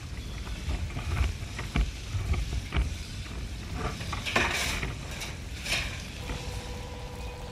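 Building-fire ambience: a low rumble under scattered crackles and clicks, with two short hissing bursts about four and a half and six seconds in. A steady hum comes in near the end.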